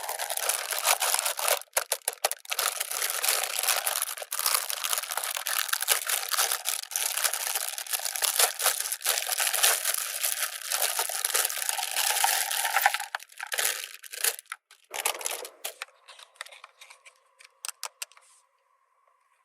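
Toy packaging being crinkled and torn open by hand: dense, continuous crackling for most of the first thirteen seconds, then a few scattered crackles that die away.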